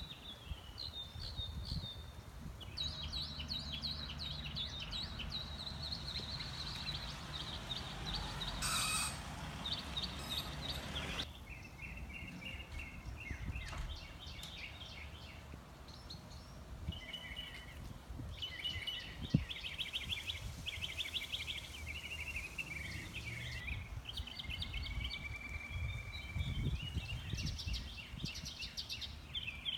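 Songbirds chirping and trilling in short repeated phrases over a steady low background rumble.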